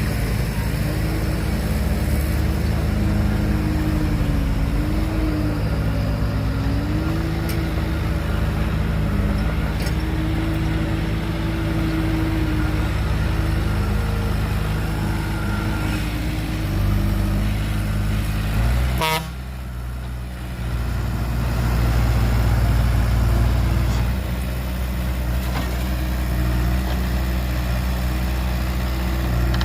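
Heavy diesel machinery running steadily, with a higher tone wavering up and down above the engine. About two-thirds of the way through, a sharp click and a brief drop in level break the sound before the engine resumes.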